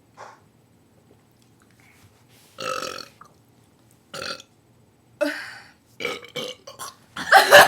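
A string of burps brought up by gulping ginger ale: about half a dozen separate belches of varying length, spaced a second or so apart, with the loudest and longest near the end.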